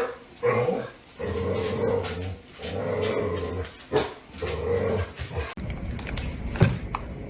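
A pet growling in four long, drawn-out bouts. About five and a half seconds in, the sound cuts abruptly to quieter hiss with a few sharp clicks.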